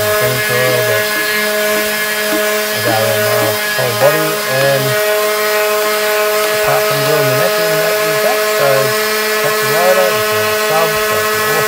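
Sandpaper rubbed back and forth by hand along a resin-coated guitar neck, a steady scratchy rubbing, over a constant electric hum. Wavering pitched sounds come and go underneath.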